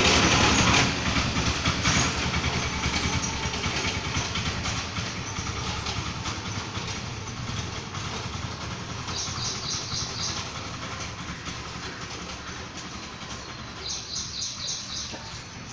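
Engine noise from a passing vehicle, loudest at first and then fading steadily away. A bird chirps in two short quick series, about nine seconds in and again near the end.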